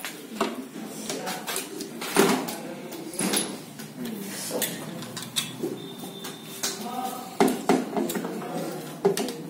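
Irregular metal clinks and knocks of manual gearbox parts being handled: the gear-shift selector housing being fitted onto the gearbox case, with loose steel bolts handled alongside.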